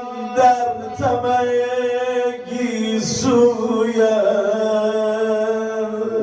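A man singing a slow Persian mourning lament (maddahi) in long, drawn-out notes into a microphone. The pitch shifts a few times, with brief breaks for breath.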